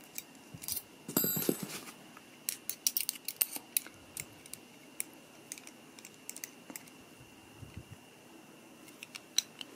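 Small metal clicks and taps of an SMK QB78DL air rifle's cocking bolt and breech parts being handled and fitted together during reassembly, irregular and thickest in the first few seconds.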